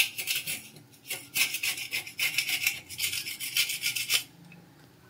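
A hand scrub brush scrubbed quickly back and forth over ceramic wall tiles and grout, a rhythmic rasping of about five or six strokes a second. It pauses briefly just after the start, picks up again, and stops a little after four seconds.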